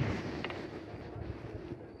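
Handling noise from a phone being picked up, with a hand rubbing near the microphone and wind rumbling on it. The rumble dies down over the first second, and there is one light click about half a second in.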